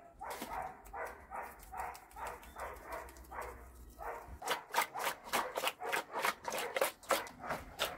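Seasoned raw fish fillets being worked in a metal pot: a run of rhythmic rubbing and scraping sounds, about three a second, softer at first and turning sharper and crisper about halfway through.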